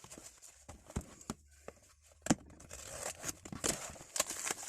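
Parcel packaging being torn open and crinkled, with a few sharp knocks of handling; the rustling grows busier in the second half.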